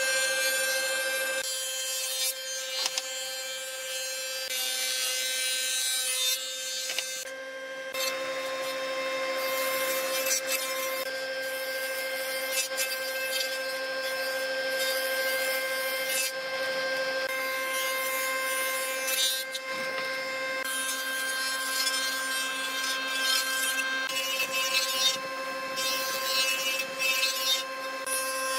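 Combination planer-thicknesser running with a steady motor whine while its cutterhead planes wooden boards, the hiss of cutting rising and falling as boards are fed through in passes.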